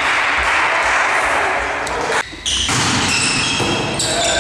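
Volleyball game sounds: a loud, even wash of cheering that cuts off abruptly about two seconds in. After it come ball hits on the volleyball and players' high-pitched calls.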